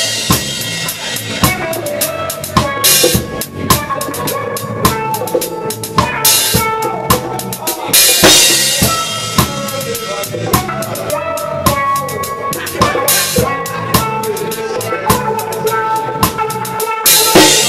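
Live reggae band with the drum kit up front: a steady beat of kick, snare and rimshot hits under the held notes of the other instruments, with cymbal crashes every few seconds.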